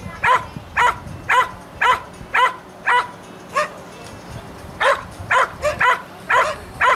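Dog barking in a steady run of short, sharp barks, about two a second, with a pause of about a second midway.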